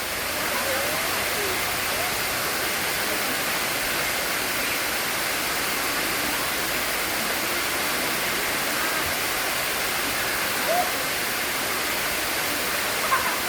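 Sai Yok Noi waterfall: falling water making a steady, even rush.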